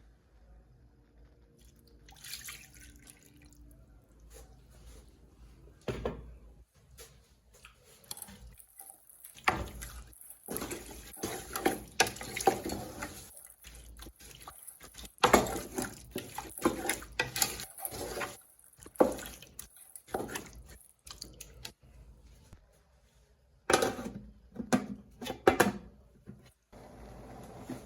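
Water splashing and dripping in irregular bursts.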